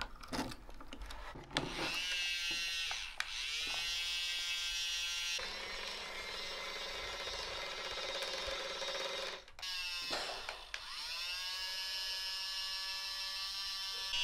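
Small electric motor of a remote-control toy crane's grapple claw whining as it works, in several spells of a few seconds with short breaks. The pitch dips and climbs back as each spell starts.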